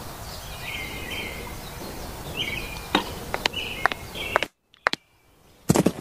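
Outdoor background noise with birds chirping, and a few light plastic taps and clicks about three seconds in. The sound cuts out for about a second, then a quick run of taps starts near the end.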